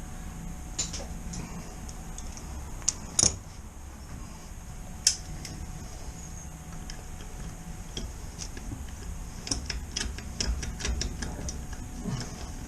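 Scattered light clicks and taps as a motorcycle wheel bolt is handled and started into the rear wheel hub. There are sharper knocks about three and five seconds in, and a quicker run of clicks around ten seconds.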